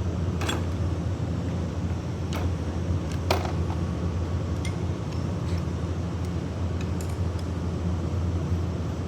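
Steady low machine hum with scattered sharp metallic clicks and clinks from tools and copper pipe being handled; the sharpest clink comes about three seconds in.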